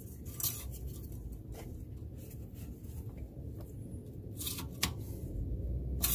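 Metal engine-oil dipstick sliding down its tube, a few short scrapes and clicks with the loudest near the end, as it is put back in to check the oil level after refilling.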